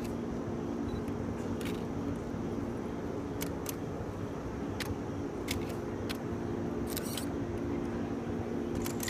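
Steady hum of a 583 series electric train standing at the platform: several fixed, unchanging tones with no rise in pitch, so the train is not yet moving. Short, sharp clicks come and go over it.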